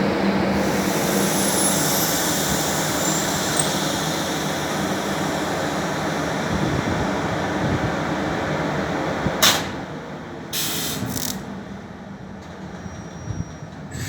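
Train running through a rural station: dense steady rumble and rail noise with a low hum and a faint high squeal, dying away over the last few seconds. A sharp click about nine and a half seconds in, then two short hisses.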